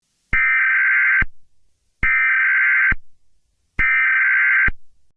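Three bursts of Emergency Alert System SAME digital header data tones, each about a second long and cutting off sharply, spaced about 1.7 s apart: the coded header that opens an alert.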